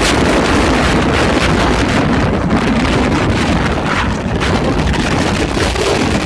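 Strong wind blowing across the microphone: a loud, steady rushing noise with no other sound standing out.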